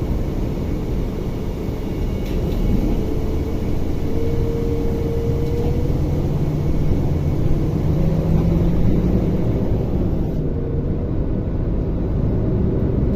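Mercedes-Benz Axor 2644 truck's diesel engine running steadily on the move, a constant low drone whose pitch rises a little around the middle.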